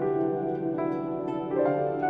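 Background music: gentle plucked-string notes in a soft, harp-like instrumental.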